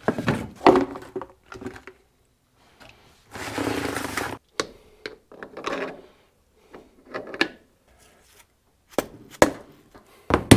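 Steel gear parts of an excavator swing gearbox being fitted into the cast housing by hand: clinks and knocks, and a scraping rattle about a second long a few seconds in. Near the end come several sharp taps from a soft-faced mallet.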